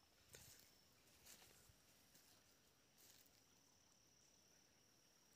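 Near silence in forest: a faint, steady high-pitched insect buzz that comes in about three seconds in, with a few soft rustles.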